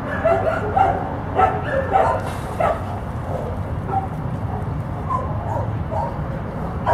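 A dog making a string of short high calls, several close together in the first few seconds, then fewer and fainter, over a steady low rumble.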